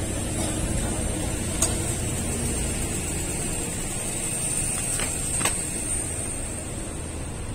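City street ambience: a steady low rumble with a thin high whine over it, and a few sharp clicks, one about a second and a half in and two around five seconds in.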